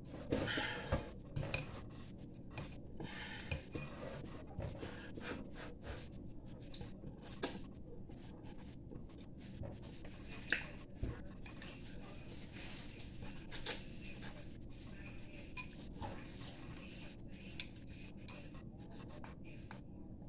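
Chopsticks clicking and scraping against a glass bowl as noodles are stirred and lifted, in scattered irregular clicks, busiest in the first couple of seconds.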